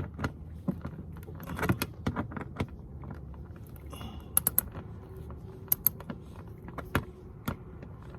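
Scattered clicks, knocks and light metallic clinks from work on a car's loose plastic undercarriage panel, which has been dragging on the ground, as it is handled and unfastened. A few of the clinks are sharp and high.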